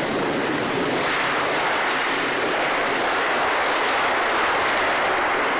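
Concorde's Olympus 593 turbojet engines running on the runway just after landing: a loud, steady rushing noise with no clear pitch.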